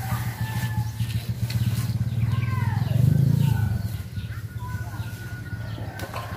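A steady low rumble, loudest about three seconds in, with faint bird calls above it.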